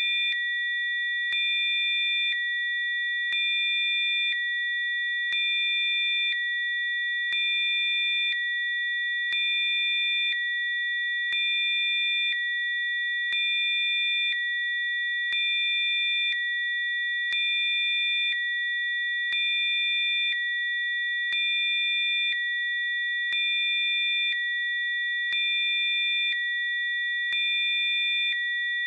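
Synthesized Rife-frequency sine tones: several steady, high-pitched pure tones sounding together, the level stepping up and down in a regular cycle about every two seconds, with a faint click at each change.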